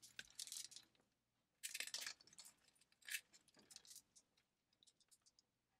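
Plastic bead necklace and metal costume jewelry clicking and jingling faintly as they are handled, in several short bursts during the first four seconds.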